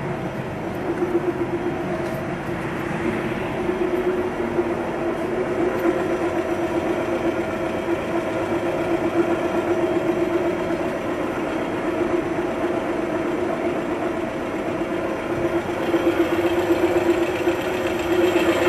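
1985 Kitamura Bridge Center 8 CNC double-column machining center running, a steady hum with a rough, fluttering edge that grows a little louder near the end.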